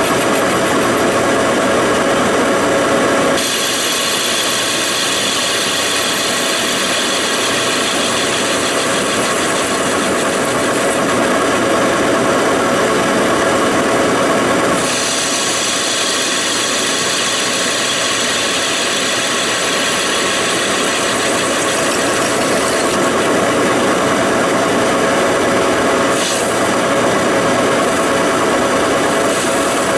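Large Monarch engine lathe running under power, its cutting tool turning and boring a cast iron pulley hub with a steady scraping cut. The cutting noise changes character about 3 seconds in, again about 15 seconds in, and once more near the end.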